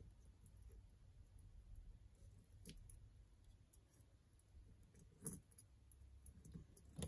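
A few faint clicks of a paper clip probing the metal mixture-screw bore of a Keihin CV carburetor, fishing for a stuck O-ring; otherwise near silence.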